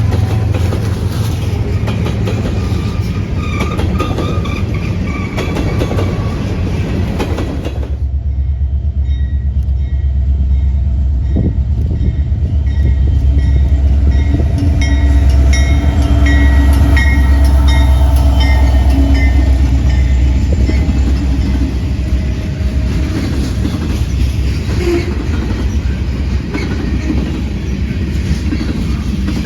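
A train running by, with heavy low rumble and the clatter of railcars. About eight seconds in the sound changes abruptly, and a short high ringing tone then repeats at an even pace for several seconds.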